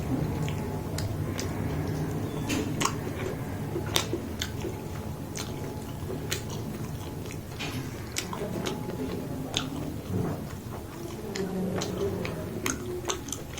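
A person eating close to the microphone: chewing with wet mouth sounds and irregular sharp clicks and smacks, over a steady low background hum.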